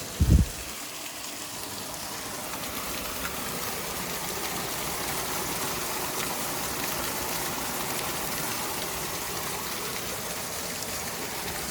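Hot spring waterfall, water falling and rushing steadily. A brief low thump just after the start is the loudest moment.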